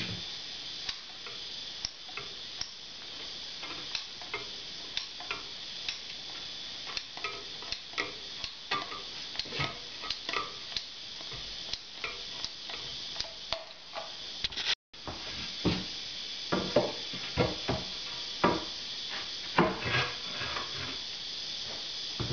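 Caulking gun clicking as its trigger is pumped to squeeze beads of construction adhesive onto the back of a tile, over a steady hiss. After a cut about two-thirds of the way in, louder irregular taps and knocks.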